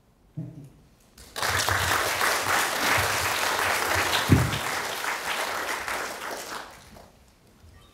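Audience applause, starting about a second and a half in and dying away near the end, with one dull thump in the middle.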